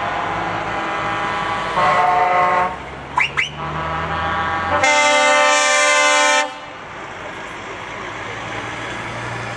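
Heavy lorries' diesel engines running past at low speed in a convoy, with air horns sounding. A short horn blast comes about two seconds in and a few quick chirps follow. A long, loud, many-toned air horn, the loudest sound, starts about five seconds in and lasts about a second and a half.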